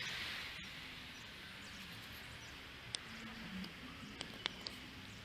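Quiet outdoor background noise with a few faint, sharp clicks scattered through it; a hiss fades away in the first second.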